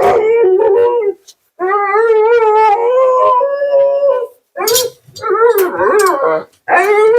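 Siberian husky howling and 'talking' in a run of drawn-out, wavering woo-woo calls, the longest nearly three seconds in the middle, broken by short pauses.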